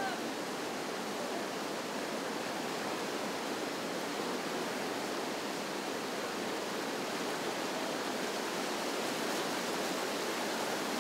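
Whitewater river rapids rushing steadily, a dense, even hiss of churning water with no pauses.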